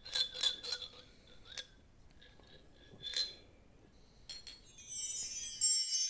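A small chime or bell struck again and again, each strike ringing briefly on the same few tones. About five come in quick succession in the first second, then single ones spread out. From about five seconds in, a dense, high, shimmering texture of many tones takes over.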